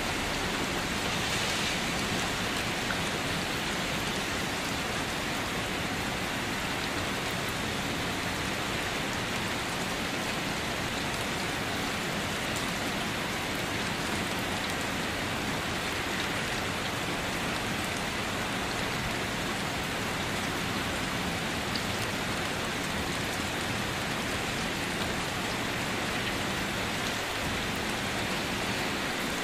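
Steady rain falling, an even, unbroken hiss of many drops with no thunder or other events.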